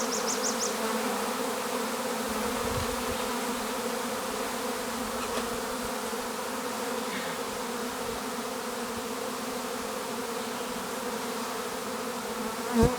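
Swarm of honeybees buzzing as a steady, dense hum. A short knock sounds near the end.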